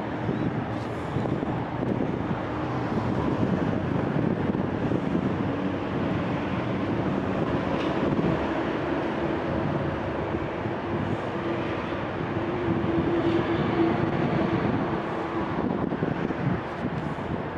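Steady rumble of road traffic on the bridge overhead, with one vehicle's hum building louder about thirteen seconds in.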